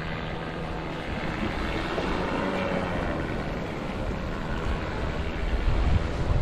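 Wind buffeting the microphone over a faint, steady motor drone. The wind rumble grows stronger near the end.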